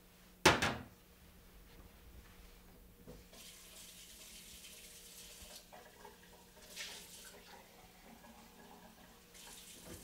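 A sharp clack about half a second in, then a kitchen tap runs for about two seconds, filling a glass, with shorter spurts of water near seven seconds and again at the end.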